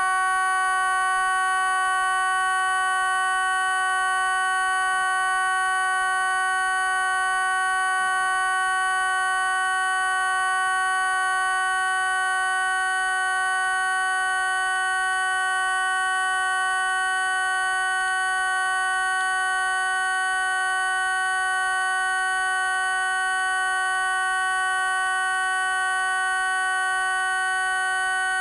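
TV station sign-off stand-by tone: a loud, steady electronic tone held at one pitch without a break.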